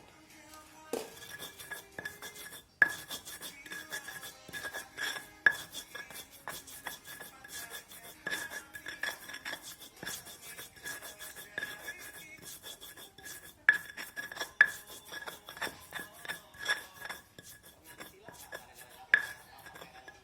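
Kitchenware clinking and knocking irregularly as spices are handled for grinding, with a handful of sharper knocks scattered through.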